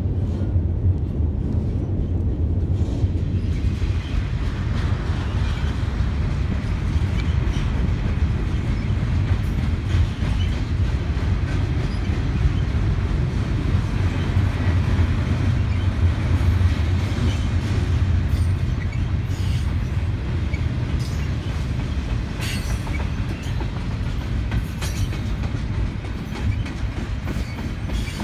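Double-stack container well cars of a BNSF freight train rolling past: a steady, loud rumble of steel wheels on rail, with scattered short clicks in the second half.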